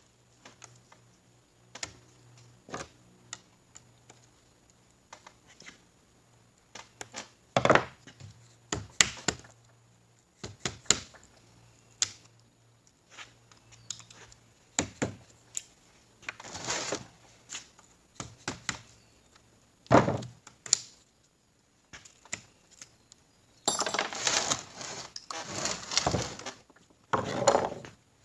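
Metal parts and hand tools clinking, knocking and scraping on a workbench during the teardown of a 4L60E automatic transmission, with scattered sharp knocks and a denser spell of rattling and scraping near the end. A faint low hum runs underneath for the first two thirds.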